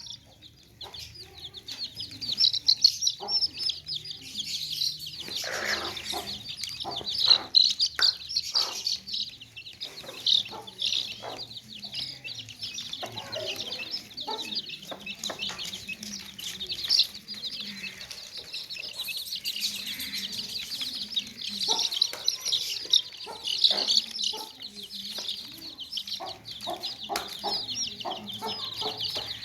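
A group of baby chicks peeping continuously in high, overlapping chirps, with an adult chicken clucking now and then over them.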